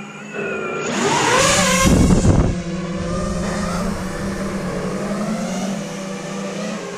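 The Emax RSII 2306 brushless motors and 5-inch props of an FPV quadcopter whine as the pilot throttles up, their pitch rising and bending. There is a loud rushing burst about two seconds in, and then the whine settles to a steady cruise.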